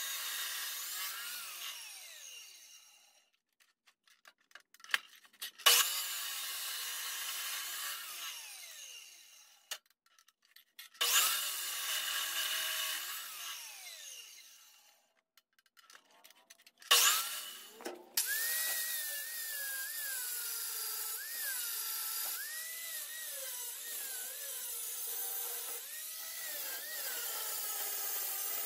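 Abrasive chop saw cutting steel angle iron: its motor runs down three times, the whine falling and fading over a few seconds, the second and third runs starting with a sudden surge. From about two-thirds of the way in, an angle grinder grinds steadily on the sheet-steel pan, its whine wavering in pitch as it bears on the metal.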